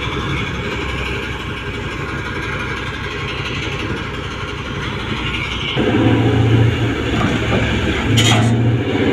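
Diesel engine of a large mining haul truck running, rising to a louder, heavier low drone about six seconds in. A brief hiss comes just past eight seconds.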